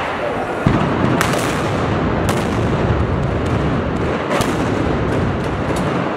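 Massed blank-firing arquebuses in a Moors and Christians gunpowder battle: a dense, continuous crackle of gunfire with sharper single cracks standing out, growing heavier a little under a second in.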